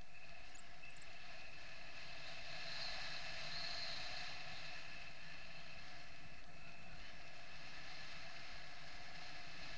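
Steady airflow rushing past a camera mounted on a paraglider in flight, with a faint steady whistle and no change in pitch.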